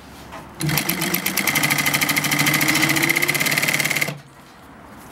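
Atlas AT7667 cylinder-bed zigzag industrial sewing machine running at speed, zigzag-stitching a leather strip: a rapid, even needle chatter over a steady motor whine. It starts about half a second in and stops abruptly about a second before the end.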